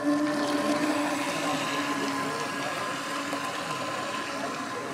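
Radio-controlled speedboat running at speed across the water: a steady high motor whine over the hiss of its spray, easing slightly after the first couple of seconds.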